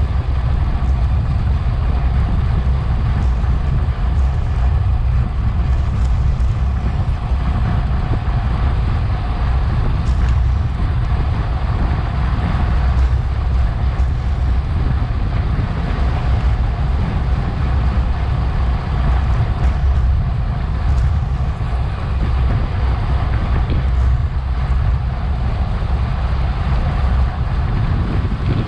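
Steady wind rush and road rumble on a bicycle-mounted action camera's microphone while riding at race speed.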